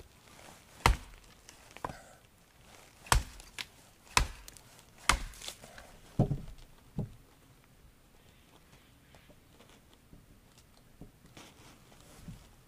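A hand tool striking wood: a run of sharp, irregular knocks, about nine in the first seven seconds, some with a short dull ring, then only a couple of faint taps. It is work on a wooden door handle being made and fitted.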